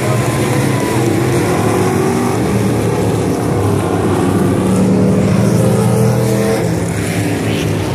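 Dirt-track Crate Sportsman stock cars running at race speed, several V8 engines at high revs, their pitch rising and falling as the cars go by.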